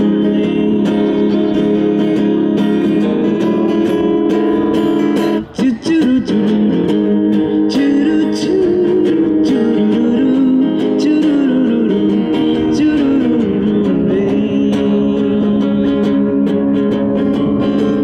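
Acoustic guitar strummed in a steady rhythm between sung verses, with a wordless vocal melody gliding over the chords. The playing breaks off briefly about five and a half seconds in.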